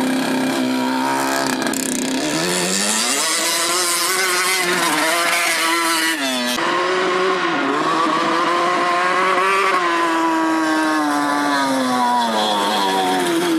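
Yamaha Banshee twin-cylinder two-stroke engine in a riding mower, revving up and holding high revs under load, with an abrupt break about halfway, then falling in pitch near the end. It bogs at the top end, which the builder takes as a sign it is running lean.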